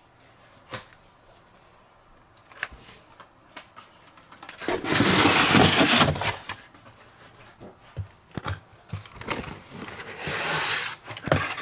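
A cardboard divider sheet being pulled out of a corrugated shipping box, a loud scraping rustle about five seconds in. Near the end come clicks and rustling as blister-carded toy cars are pulled from the packed case.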